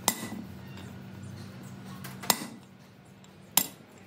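Metal parts or tools knocking against metal three times, sharp and short, about a second apart, over a steady low hum.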